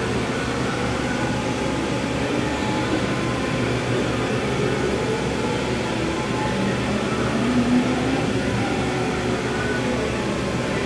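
YCM TV-158B vertical machining center running under power with its table traversing: a steady mechanical hum with faint whining tones, and one brief swell about three quarters of the way through.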